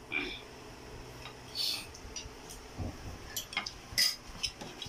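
Spoons and forks clinking and scraping against plates and bowls while people eat, in scattered short strokes, the loudest about halfway through and again about four seconds in.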